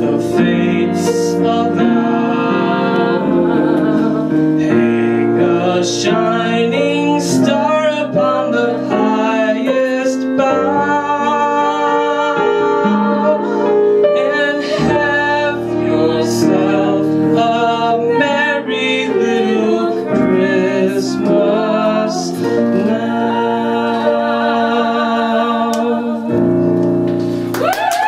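A slow Christmas ballad played live: electric piano chords under a singing voice that holds long notes with vibrato.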